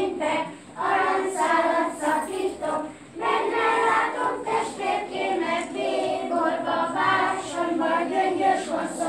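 A group of young children singing a song together, the singing of a ring game as they move round holding hands.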